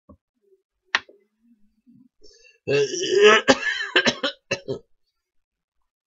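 A person's voice making a loud, harsh, noisy vocal sound lasting about two seconds, starting a little under three seconds in, with a single click about a second in.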